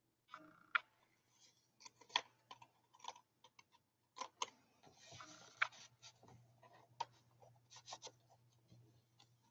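Paper tags and cardstock handled on a journal page: soft rustling and sliding with scattered light clicks and taps. A short sliding rustle comes about five seconds in.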